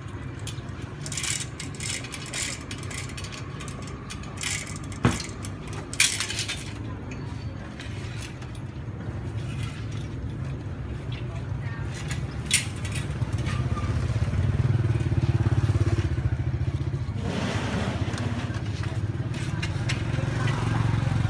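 Street ambience with a steady low engine hum from passing traffic, swelling louder in the second half, and background voices. A few sharp metal clicks from tongs on the wire grill rack come about five, six and twelve seconds in.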